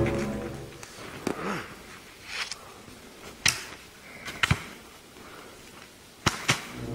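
A long-handled tool striking frozen, snowy ground in a handful of sharp, irregularly spaced blows, the last two in quick succession near the end.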